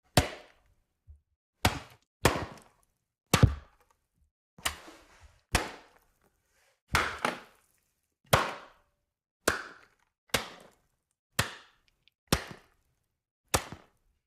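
A series of separate sharp hits, about one a second at uneven spacing, each fading away quickly.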